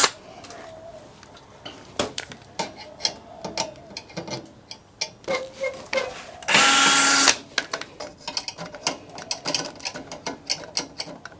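Small clicks and clinks of screws and metal parts being handled while a steel server chassis is taken apart. About halfway through, a cordless power screwdriver runs in one short burst.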